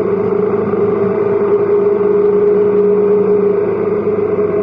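Motorcycle engine running at a steady cruise, heard up close from a camera mounted on the bike, with a steady hum; the lower note fades near the end as the engine eases off slightly.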